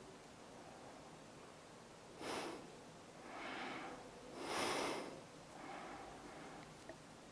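A person breathing close to the microphone: a sharp intake about two seconds in, then a few slower breaths in and out, over a faint steady hum.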